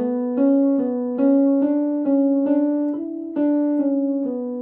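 Piano playing the vocal exercise pattern as single notes, about two and a half a second, each struck and fading. The notes step up to a top note about three seconds in, come back down, and end on a held note near the end.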